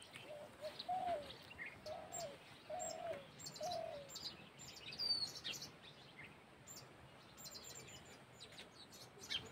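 Wild birds calling faintly: scattered high chirps and tweets, with a run of about five short low notes in the first four seconds.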